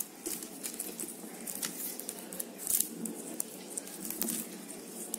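Stiff plastic craft wire rustling and clicking as fingers work it into a knot around plastic tubing, with irregular small ticks.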